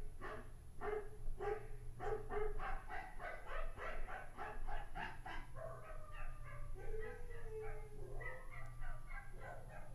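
Recorded dog barking played back: quick high yaps, about three or four a second, giving way about halfway through to longer whining yelps that bend in pitch.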